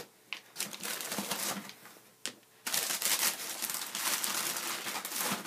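Tissue paper in a cardboard shoebox crinkling and rustling as hands pack a sneaker and fold the paper over it. There is a shorter stretch at first, a sharp tap a little after two seconds, then a longer, louder stretch of crinkling.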